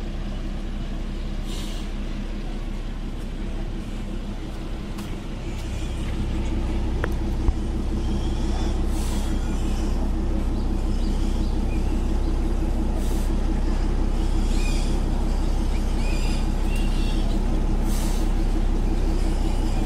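ZDM5 narrow-gauge diesel locomotive's engine running as it shunts slowly up to the coach, growing louder about six seconds in. A single sharp click comes shortly after, and short hisses of air recur every few seconds.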